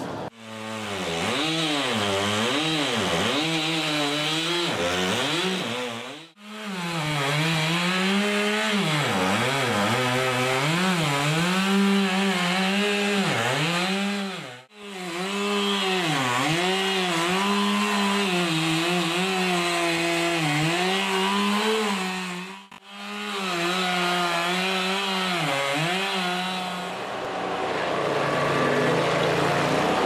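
Chainsaw cutting through a tree trunk, its engine pitch dipping and rising again and again as the chain bogs in the wood and picks back up. The sound cuts off abruptly three times, and near the end gives way to the steadier engine note of a stump grinder.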